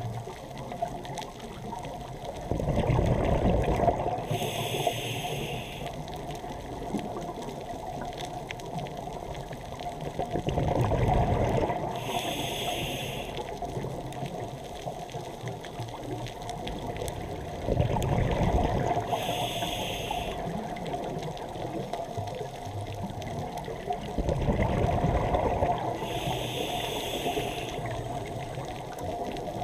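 Scuba diver breathing through a regulator underwater: four breaths about seven seconds apart. Each is a burst of bubbling followed by a short hiss.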